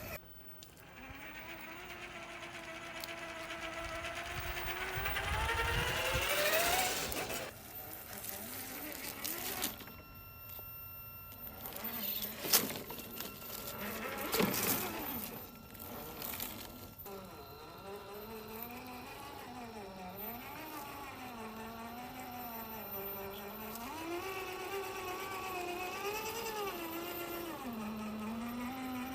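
Traxxas TRX-4 Mercedes G500 RC crawler's electric motor and gears whining. The pitch climbs over the first several seconds, and the later stretch rises and falls as the throttle changes. A few sharp knocks and clatter come through the middle.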